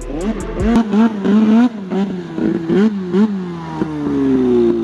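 Polaris 600R snowmobile's two-stroke engine revving up and down in quick repeated throttle bursts as the sled is ridden hard, then a long falling whine as the throttle comes off near the end.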